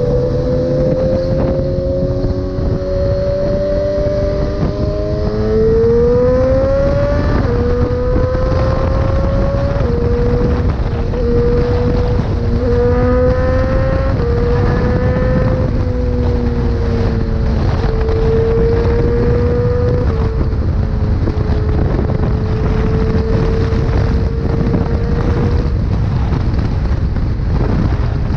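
Inline-four sport motorcycle engine under way, its pitch climbing and then dropping back at each of several gear changes, over heavy wind rush on the microphone.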